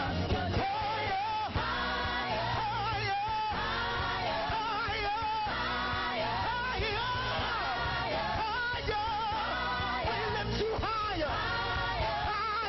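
Live gospel praise-and-worship music: voices singing with vibrato over a steady instrumental accompaniment with held bass notes.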